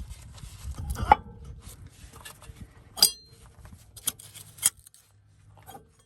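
Sharp metallic clinks and knocks from a truck-brake S-cam shaft being lined back up and worked into its bushing, four or so strikes, one of them ringing briefly about three seconds in.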